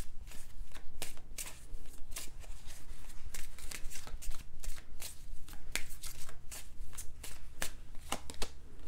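A deck of oracle cards shuffled hand over hand, the cards slapping together in quick, irregular clicks, several a second.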